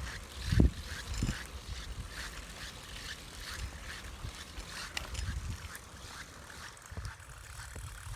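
Abnormal squeaking from the Tunnus fitting on a Brompton folding bicycle as it is ridden: short, sharp squeaks repeating about two to three times a second over a low rumble, thinning out in the second half.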